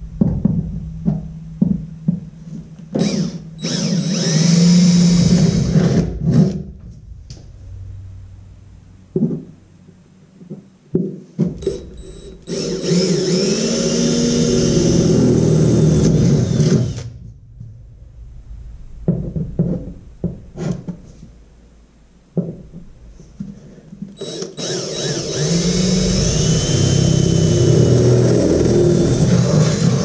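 Cordless DeWalt drill with a 3/8-inch bit boring holes through the aluminium bench seat of a jon boat. There are three long runs of several seconds each, with short trigger bursts between them, and the pitch rises and falls as the bit cuts through the metal.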